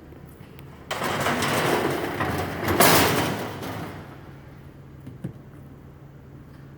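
Vertical baler's door being slid up open, a loud scraping, rattling sound of about three seconds that peaks near the end, over a low steady hum.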